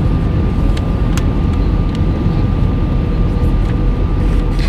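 Airbus A319 airliner's steady rumble of engines and airflow, heavy in the low end, with a thin steady whine over it. A few faint clicks about a second and two seconds in.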